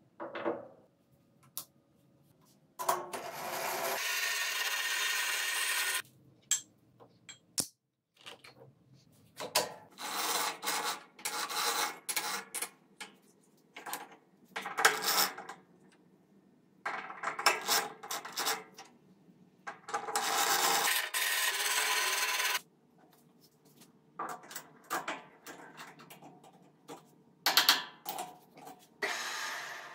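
Metal scraping, rubbing and clunking as a rusty round workpiece is handled and clamped into a metal lathe's chuck. The sounds come in irregular bursts, some lasting a few seconds, with quiet gaps between.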